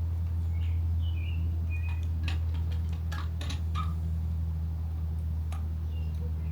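Sharp metallic clicks and taps, bunched about two to four seconds in, from a bicycle front wheel being fitted back into the fork, over a steady low hum. A few short, faint chirps come and go.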